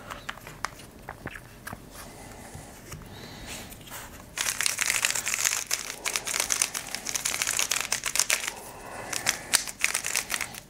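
A Moyu YS3 M 3x3 speed cube being turned fast by hand. A few scattered plastic clicks come first, then about four seconds in a dense run of clicking and rattling, with a short pause near the end. Drops of Martian lubricant have just gone into the pieces, and the turning works the lube in.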